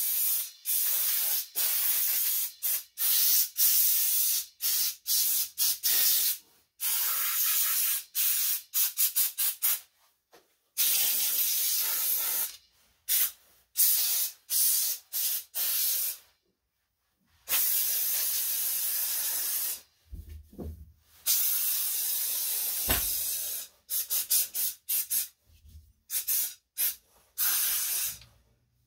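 Compressed-air blow gun firing many short bursts of air and a few longer blasts of a couple of seconds, blowing a CNC router dry after it has been wiped down.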